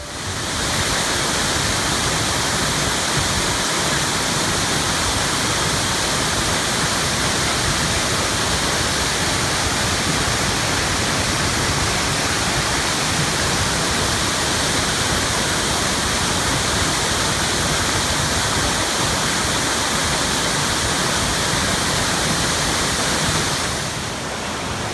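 Steady rush of a waterfall, dropping slightly in level about a second before the end.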